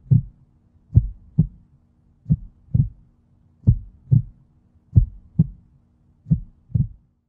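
Heartbeat sound effect: slow lub-dub double thumps, about one pair every 1.3 seconds, over a faint steady low drone.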